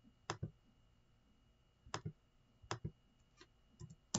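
Computer mouse and keyboard clicks: about six short, sharp clicks, several in quick pairs, irregularly spaced, as the refresh button is clicked and an address is typed.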